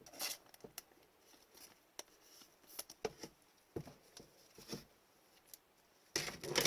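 Trading cards and plastic card sleeves being handled: scattered light taps and short rustles of card stock and plastic, with a longer, louder rustle near the end.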